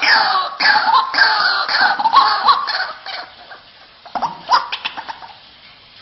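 White-breasted waterhen (ruak-ruak) calling: a rapid series of harsh notes, each falling in pitch, about two a second. The series dies away about three seconds in, with a few short sharp notes a second or so later.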